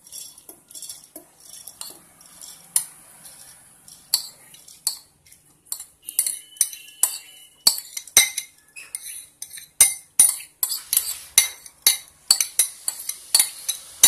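Soaked, drained moong dal being scraped out of a bowl into a steel mixer-grinder jar: a run of sharp, irregular clinks and taps of utensil and bowl against the jar, coming faster and louder in the second half.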